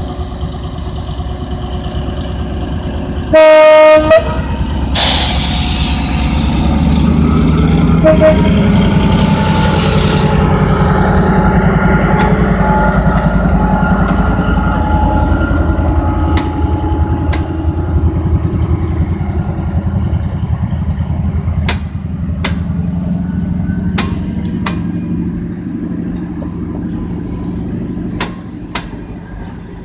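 CNR CKD8H diesel-electric locomotive blowing its horn in one short blast about three seconds in, then its engine running louder as it pulls away with a passenger train. In the second half the coaches roll past with sharp clicks of wheels on the rails.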